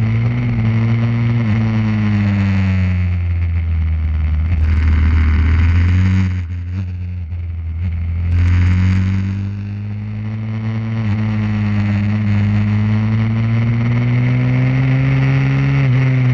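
Pit bike engine heard from an onboard camera, its pitch rising and falling with the throttle: it eases off and drops in level about six seconds in, then pulls up again in a long steady rise. Wind noise over the microphone throughout.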